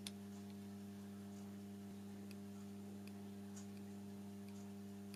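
A steady low electrical hum runs throughout, with a few faint, irregularly spaced light clicks from handling the small gauge and its measuring stem.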